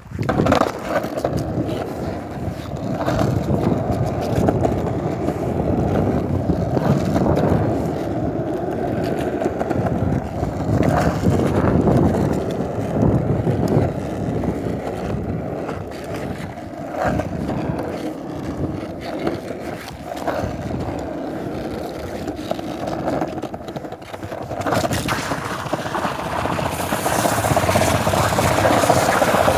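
Skateboard wheels rolling over paved ground: a continuous rumble with a few short clacks, growing louder near the end.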